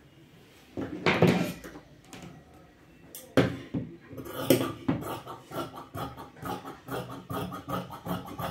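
Large tailor's shears cutting through fabric: a few louder clacks in the first half, then a steady run of snips, about two or three a second, from about five seconds in.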